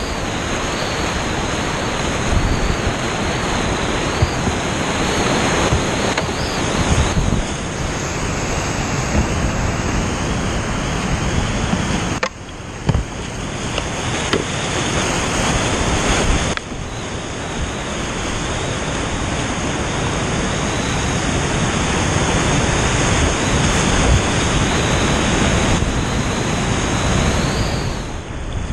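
Loud, steady rush of whitewater rapids close around a kayak, the sound shifting abruptly about 12 and 16 seconds in.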